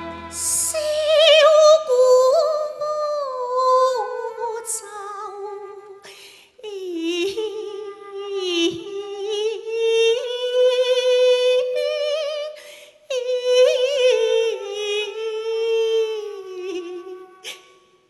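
A woman singing a Cantonese opera song in long held phrases with strong vibrato, pausing briefly about three times.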